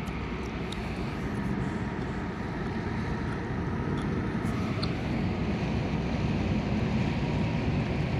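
Steady low rumble and hum of a large moored car ferry's engines and machinery running, with a couple of faint clinks about four and five seconds in.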